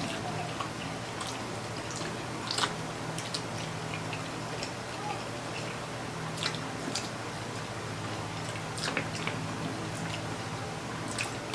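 A person chewing and eating saucy pork ribs close to the microphone: scattered wet mouth clicks and smacks, over a steady low hum.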